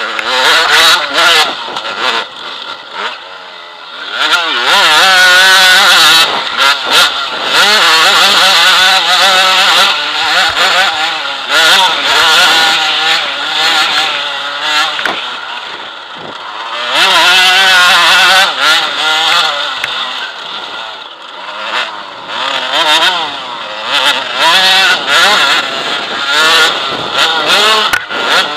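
KTM enduro motorcycle's engine heard close up from a camera mounted on the bike, revving up and easing off again and again as the rider works the throttle and gears along a dirt trail, with frequent short knocks.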